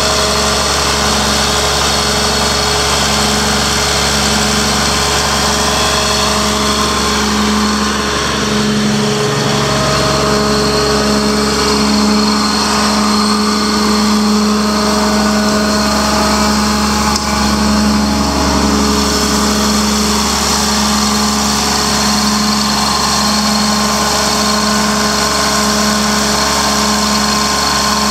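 Diesel engine of a Sullair 900H portable rotary-screw air compressor running at a steady speed, with a steady hum.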